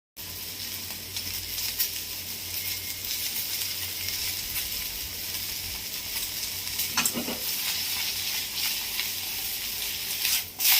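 Thinly sliced okra frying in hot oil in a kadai: a steady sizzle with fine crackling, near its crisp, finished stage. A few sharp knocks of stirring come about seven seconds in and a louder one near the end.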